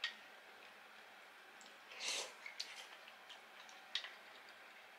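Quiet eating sounds: a few light clicks of tableware, with one short, louder noisy sound about two seconds in.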